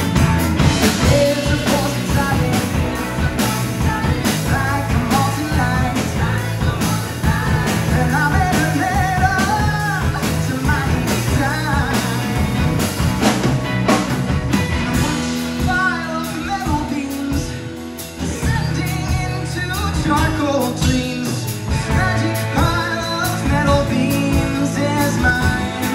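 Live band playing a pop-rock song on drums, bass, electric guitar and piano, with a wavering melodic lead line over it. About sixteen seconds in the bass and drums drop away briefly and the level dips, then the full band comes back in.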